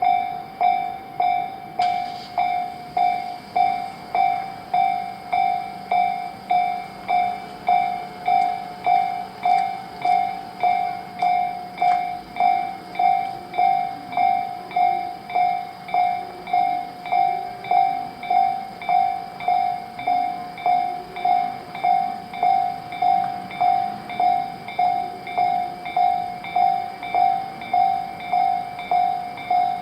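Japanese railway level-crossing warning bell ringing steadily at about one and a half dings a second, signalling that the crossing is closed for an approaching or passing train. Fainter train running noise lies underneath.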